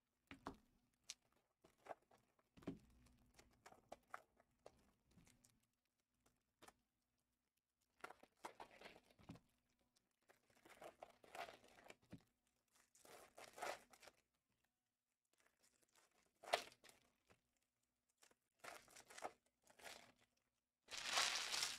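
Foil trading-card pack wrappers crinkling and tearing in hands, in short scattered rustles. The loudest is a longer crinkling tear near the end.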